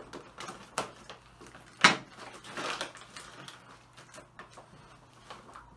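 Plastic bag of cat litter being cut open and handled: a few sharp clicks, the loudest about two seconds in, followed by crinkly plastic rustling.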